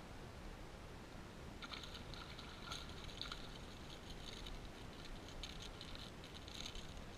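A hooked redfish splashing and thrashing at the water's surface beside a kayak, an irregular crackling patter that starts about one and a half seconds in, over a low rumble of wind on the microphone.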